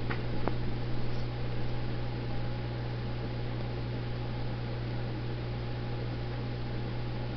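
Steady low electrical hum under an even hiss, with two faint clicks in the first half second.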